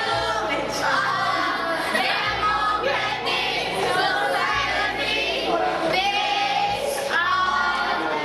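A group of teenage students singing a song together in chorus.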